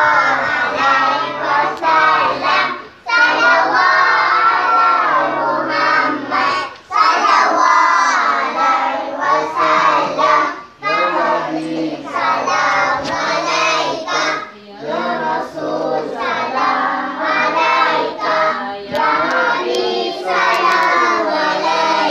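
A group of children singing together in chorus, a marhaban chant, in phrases of a few seconds with short breaks between them.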